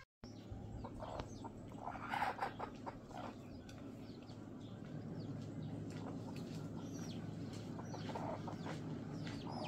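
Chickens at a poultry seller's: chicks cheeping in many short, high, falling peeps, with some clucking, over a steady low hum.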